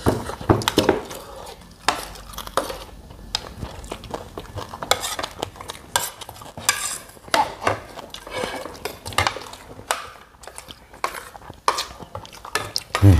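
Metal spoons clinking and scraping on plates and bowls as people eat, in a quick, irregular patter of small clicks.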